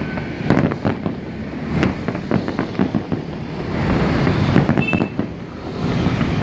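Aerial fireworks shells bursting in quick succession: a dense, irregular string of bangs and crackles over a low rumble.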